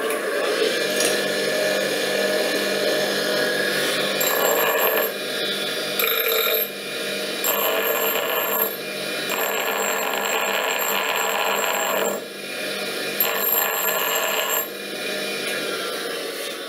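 Electric bench grinder running steadily, with a workpiece pressed against its abrasive wheel in about five passes from about four seconds in, each pass adding a high-pitched ringing grinding sound.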